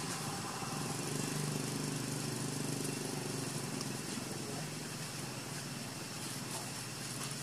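A motor vehicle engine running steadily in the background, fading after about four or five seconds, over a constant outdoor hiss.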